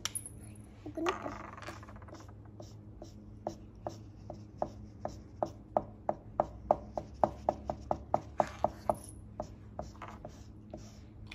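Felt-tip markers scribbling on tissue paper laid on a table: a quick, regular run of short strokes that comes faster and louder through the middle.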